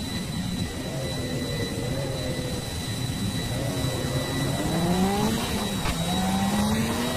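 A steady whirring, machine-like noise with a low hum that slides upward in pitch twice, about halfway through and again near the end, over a faint high steady whine.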